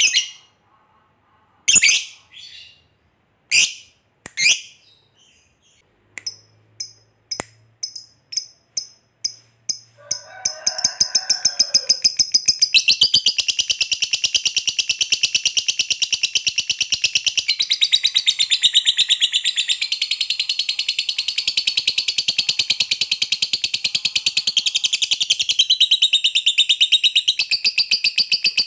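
Masked lovebird calling. A few sharp single chirps are followed by a quickening run of short chirps, which from about ten seconds in turns into a long, rapid, unbroken chattering trill (the 'ngekek panjang' long chatter prized in singing lovebirds). It stops suddenly near the end.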